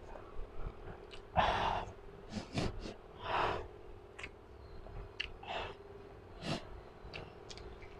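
A woman blowing out hard and sniffing from the burn of very spicy food: several breathy puffs a second or two apart, the loudest about a second and a half in and again near the middle, with a few small mouth clicks.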